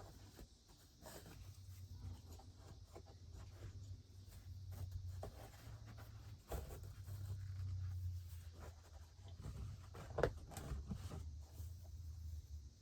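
Faint rustling, scratching and light knocks of satin ribbon and a wooden spoon being handled while the ribbon is tied, with a couple of sharper taps, over a low steady hum.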